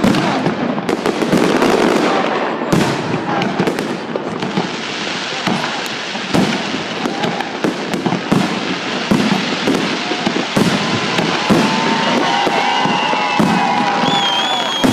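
Fireworks salute: repeated bangs of bursting shells over a continuous crackle. Whistling tones join in near the end.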